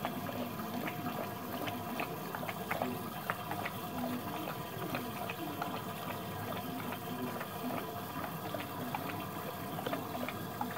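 Labrador retriever lapping liquid from a stainless steel bowl: a continuous run of quick, irregular wet laps and slurps with metallic bowl clinks.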